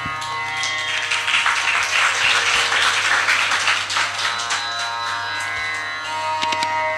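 Audience applauding for about three seconds over a steady drone. Near the end the sarangi starts bowing its first sustained notes.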